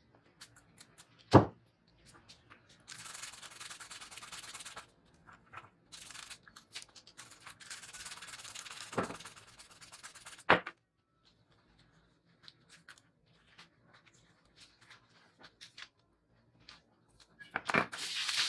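Toothbrush bristles scrubbing a small scale part held in metal tweezers, in two stretches of brushing a few seconds each, with a few sharp knocks in between and a loud cluster of them near the end.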